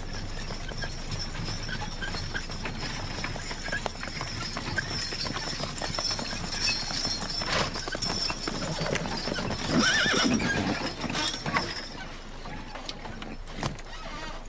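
Hooves of a two-horse team clip-clopping on a dirt road as they pull a wagon up and stop. A horse whinnies about ten seconds in, the loudest moment.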